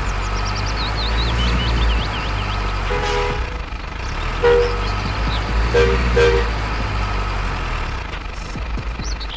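Simulated heavy truck engine rumble from a toy RC cement mixer truck, running steadily, with short two-note horn toots about three seconds in, again at four and a half seconds, and a quick double toot around six seconds.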